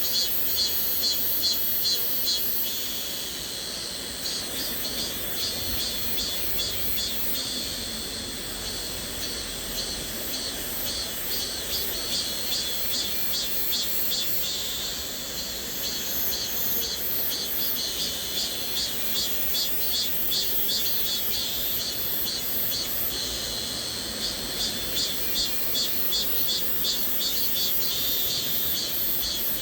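Cicadas buzzing high-pitched, pulsing about twice a second in waves that swell and fade, over the steady rush of a flowing stream.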